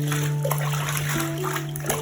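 Background music with long held notes over running and splashing water as a Persian cat is washed in the bath.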